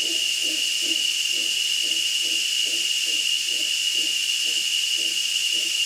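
A steady, high-pitched insect drone, most likely cicadas, with a fainter rhythmic series of low grunts, about two to three a second, from a mantled howler monkey.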